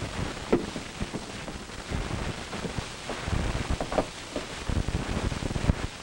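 Steady hiss and crackle of an old optical film soundtrack, with irregular low thumps and a few sharp clicks.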